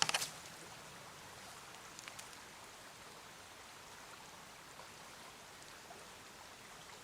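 Small mountain stream running steadily, an even rush of water. A quick cluster of sharp clicks sounds right at the start, and a couple more about two seconds in.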